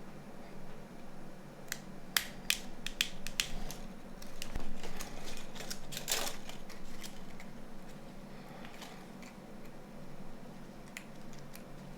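Small sharp clicks and taps of phone parts being handled and fitted, bunched together about two to three and a half seconds in, with a short scrape or rustle about six seconds in and a few more clicks near the end, over a steady low hum.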